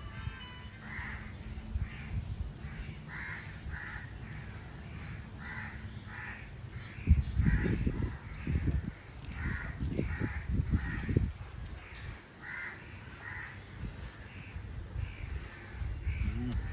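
Crows cawing over and over, short calls coming about once a second. Low rumbling noise comes in midway through.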